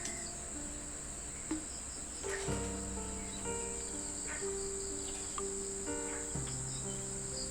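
Steady, high-pitched chirring of insects, with soft background music of slow held notes that change pitch every second or so.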